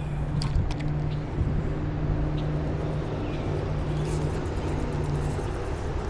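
Steady low engine hum of motor traffic, with a few light clicks in the first second.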